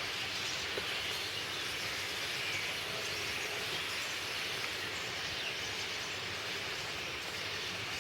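Many birds singing at once, their calls blending into a steady, dense chorus of song.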